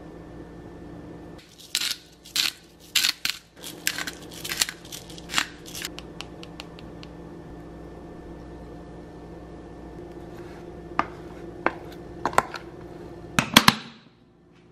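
A metal measuring spoon clicking and scraping against a clear plastic food container in a quick run of taps while spices are shaken over chopped red pepper and chicken. A few single clicks follow, then a louder double clatter near the end as the plastic container is picked up. A steady low hum runs underneath.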